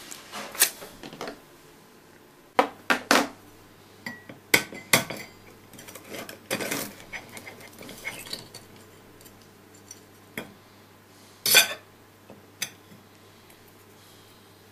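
A teaspoon and eggshell knocking and scraping against a ceramic egg cup and plate: a series of short clinks and scrapes with pauses between, the loudest about eleven and a half seconds in.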